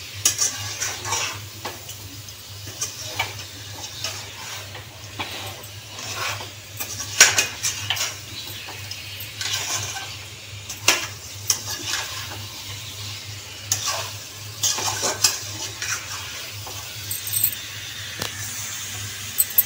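Slotted metal spatula stirring chicken pieces through thick masala in a steel kadai, with irregular scrapes and clinks of metal against the pan. A steady low hum runs underneath.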